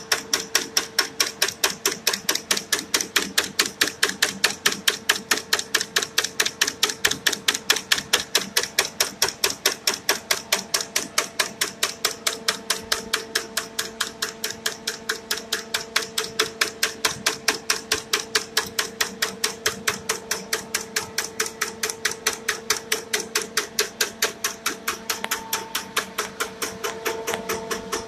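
Wire nail machine running, with a fast, even rhythm of sharp mechanical clacks, several a second, over a steady hum.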